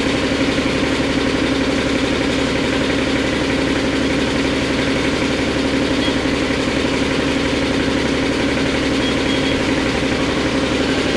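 Steady mechanical hum with a strong low tone from a Mori Seiki SL-403CMC CNC lathe slowly turning its chuck on the C axis, with a shop air compressor running.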